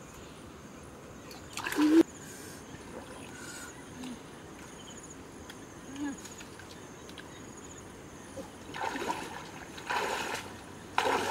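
Wading through a shallow, muddy stream: a single splash about two seconds in, then a run of splashing steps through the water near the end. A faint, steady insect chirring sits underneath.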